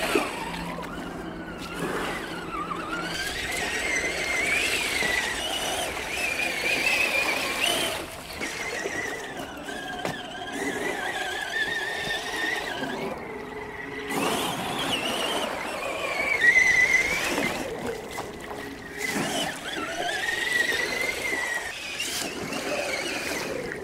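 An FTX Outback Fury 2.0 RC crawler's electric motor and gears whining, the pitch rising and falling as the throttle is worked, easing off briefly several times.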